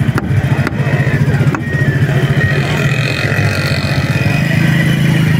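An engine running steadily, a low pulsing drone, with a few sharp knocks in the first couple of seconds from a heavy chopping knife striking the wooden cutting block as it slices through fish.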